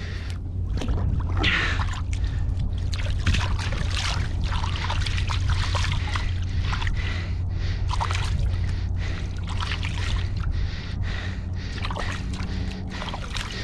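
Shallow river water splashing and slopping in irregular bursts as a freshly caught fish is held and swished in it at the water's edge, with heavy breathing over it.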